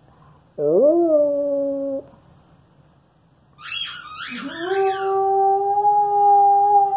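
Alaskan Malamute howling, slightly hoarse: a short howl that rises and then holds, about half a second in. A few high squeaks from her squeaky toy come around the middle, and just after them she starts one long, steady howl.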